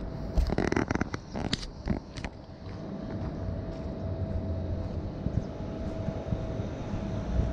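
Steady low engine-like rumble with a faint steady hum, and a cluster of knocks and rustles in the first couple of seconds.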